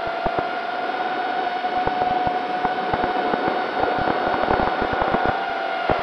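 QAV210 quadcopter's RCX H2205 2633KV brushless motors spinning DAL 5045 tri-blade props in flight, heard from the onboard camera: a steady high whine that rises slightly in the middle and eases back. Frequent sharp crackling clicks run over it, getting denser in the second half.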